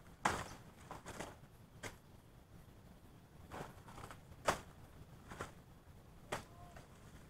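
Scattered sharp knocks and rustles of someone working among banana plants by a rice paddy, roughly one every second, loudest about half a second and four and a half seconds in.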